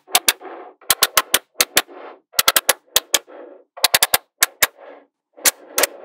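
Small metal magnetic balls snapping together: quick clusters of sharp clicks, about six times, as ball blocks are pushed against each other, each cluster followed by a brief softer rattle of the balls shifting and sliding on the table.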